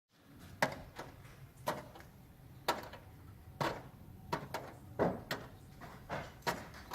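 Repeated hard knocks, roughly one a second and a few coming closer together midway, from masonry being broken up as a chimney is demolished.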